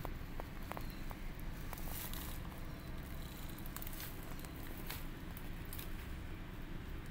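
Mother cat nosing and licking her newborn kittens in their bedding: soft rustling with scattered small clicks over a low rumble.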